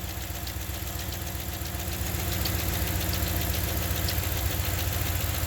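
Ram 1500's 5.7 Hemi V8 idling steadily with its accessory drive belt removed, run this way to check whether a chirping engine noise comes from the belt-driven accessories or from inside the engine. A few faint light ticks sound over the idle.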